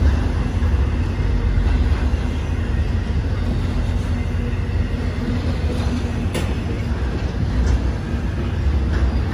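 BNSF intermodal freight train's trailer and container cars rolling steadily past, a continuous low rumble of wheels on rail, with an occasional sharp clack, the clearest about six seconds in.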